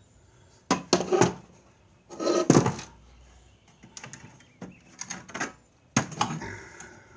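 Metal sockets clinking together as they are picked up and set down: a few sharp clinks, the loudest about two and a half seconds in, with lighter taps between.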